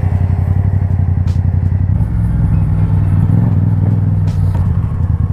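A 2017 Yamaha MT-07's parallel-twin engine running through a full Akrapovic exhaust system while riding at low revs. The exhaust note grows a little louder about two seconds in.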